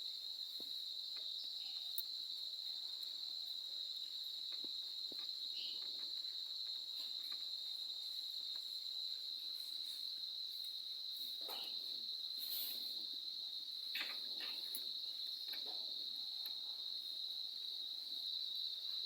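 Steady, unbroken high-pitched trill of crickets, with a few faint clicks and short rustles of small parts being handled.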